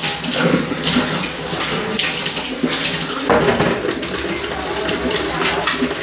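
Water running from a kitchen tap and splashing into a sink as dishes are washed by hand.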